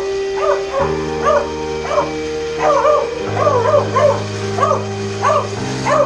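A beagle barking in short, repeated yelps, about two a second, over background music with held notes.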